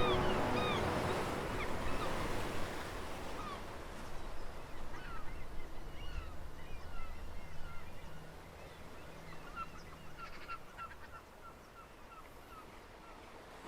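The last blast of the Sumburgh foghorn cuts off at the very start and its echo dies away, then birds call in short chirps, growing more regular near the end, while the whole sound fades out.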